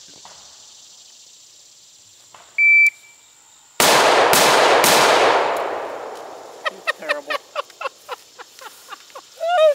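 A shot timer's start beep, then about a second later three rapid rifle shots roughly half a second apart, the last fading out over a second or two. A scatter of faint clicks follows.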